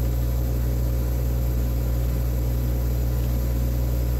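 Steady low machine hum with a faint high-pitched whine from a running clinical chemistry analyzer, the Siemens Dimension EXL 200.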